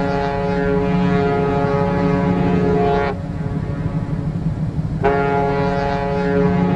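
Ship's horn giving two long, steady blasts: the first is already sounding and stops about three seconds in, and the second starts about two seconds later. A steady low rumble runs underneath.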